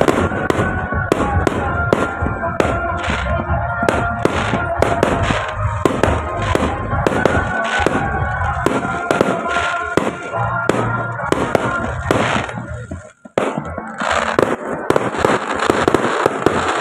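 Aerial fireworks bursting in a rapid run of sharp bangs, two or three a second, with music playing underneath. Near the end the sound cuts out briefly, then a dense crackling hiss follows.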